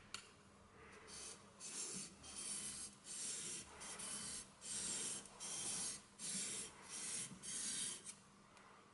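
A small tempered-steel finger-plane blade being honed on a sharpening stone: about a dozen rhythmic back-and-forth scraping strokes, roughly one and a half a second, after a single tap at the start.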